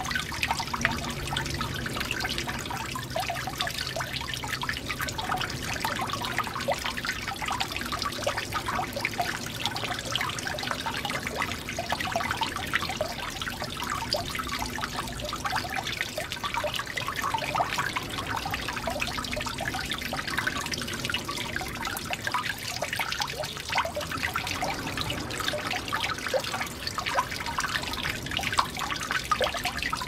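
Water trickling and dripping steadily from a leaking pipe, a continuous dense patter of many small drips.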